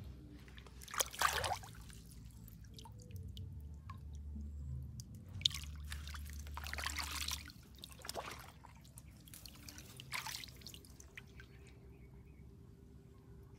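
Hands splashing and scooping through shallow water, with water dripping and trickling off them; the splashes come in several short bursts, about a second in, twice in the middle and again about ten seconds in.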